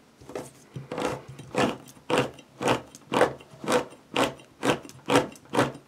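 Hand-held manual can opener with a turning key cutting around the rim of a tin can lid: a regular crunching click at each turn of the key, about two a second.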